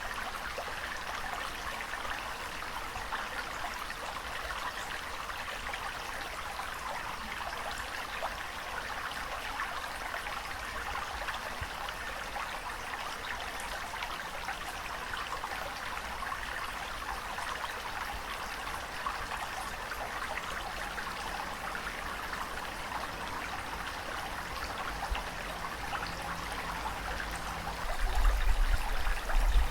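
Steady rushing and trickling water, an even fine-textured wash with no rise and fall of waves. A low rumble comes in near the end.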